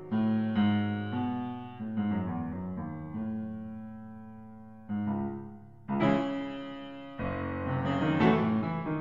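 Background piano music: slow chords, each struck and left to fade, growing fuller and louder in the second half.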